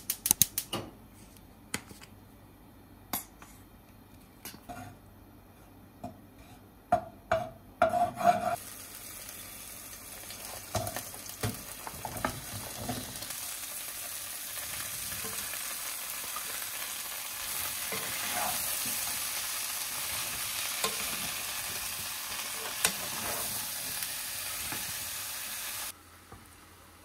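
Chopped onion, bell pepper and zucchini sizzling in hot olive oil in a nonstick frying pan as they are stir-fried, with a utensil knocking and scraping the pan. Before the vegetables go in, there are only scattered sharp clicks and knocks. The sizzle starts about eight seconds in and cuts off suddenly near the end.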